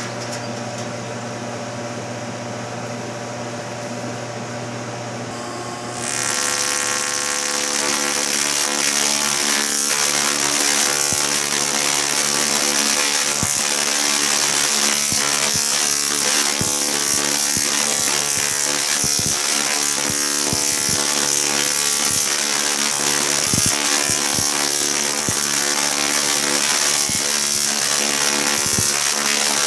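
Large DRSSTC (dual resonant solid state Tesla coil) running: a steady electrical hum that turns, about six seconds in, into a louder, harsh spark buzz with scattered sharp cracks as the streamers strike out.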